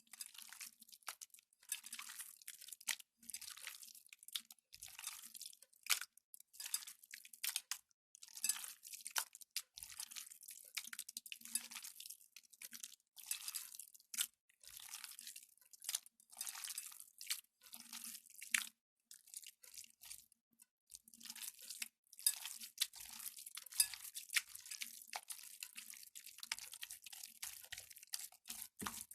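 Gelatin jelly slime being squeezed and worked by hand: an irregular run of wet squelching, crackling and sticky tearing sounds, broken by short pauses.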